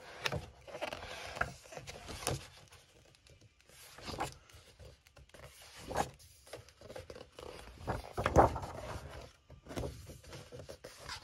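Glossy pages of a hardback photo book being turned and smoothed flat by hand: a string of irregular paper swishes and rustles, loudest about eight seconds in.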